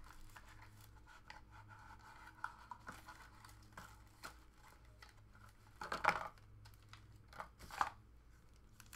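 Thin plastic wrapper crinkling and tearing as a pack of trading cards is opened by hand, with two louder crackles about six and eight seconds in.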